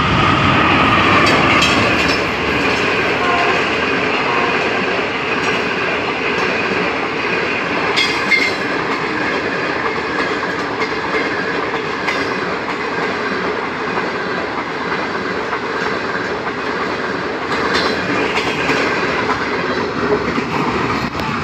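Pakistan Railways Green Line express passing at speed. The diesel locomotive goes by first and is loudest at the start, then a long run of coaches follows with a steady rolling rush and wheels clacking over rail joints now and then.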